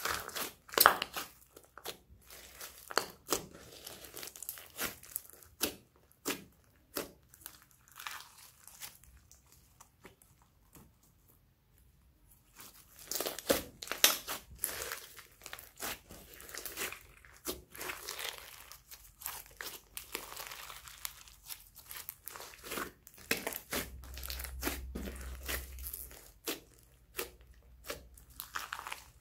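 Hands kneading and squeezing a large lump of pink slime mixed with foam beads, making a run of sticky squelching pops and crackles. The pops thin out briefly about ten seconds in, then come thick and fast again.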